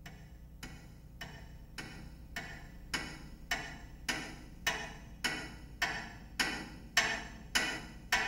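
Slow, even clock-like ticking, a little under two ticks a second, growing steadily louder over a faint low hum.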